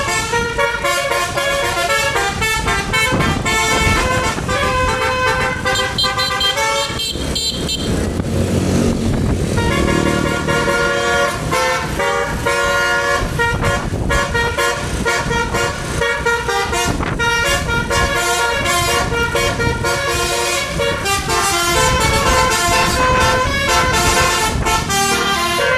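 Bus telolet horn, a set of multi-tone air horns, playing quick runs of notes that step up and down in pitch like a tune. It breaks off for a few seconds about a quarter of the way in, when engine and road noise comes through.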